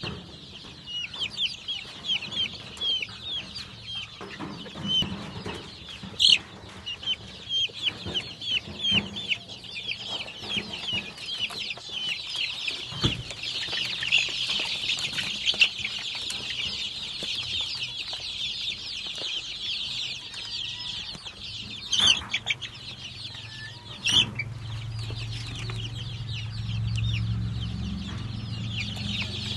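A brood of young country-chicken chicks peeping: short, high, downward-sliding peeps, a few a second at first, then thickening into a dense, unbroken chorus. A few sharp knocks cut through it.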